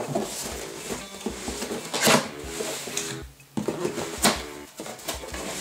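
Cardboard box being handled and its flaps pulled open, with short rustling, scraping knocks, the loudest about two and four seconds in, over soft background music.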